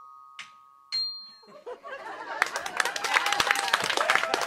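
Glockenspiel notes ring and fade, with one more short high note struck about a second in. Audience applause then starts and builds.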